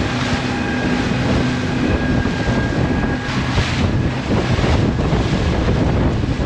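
Water taxi's boat engine running with a steady hum, under heavy wind noise on the microphone and rushing water, with a couple of louder gusts or splashes partway through.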